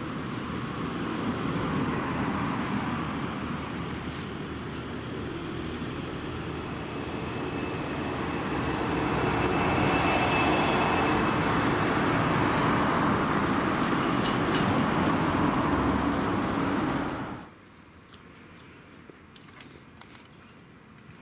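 An electric train running on the line, with a steady rumble of wheels and motors that grows to its loudest in the middle and carries a faint high squeal. It cuts off suddenly near the end, leaving quiet with a few small clicks.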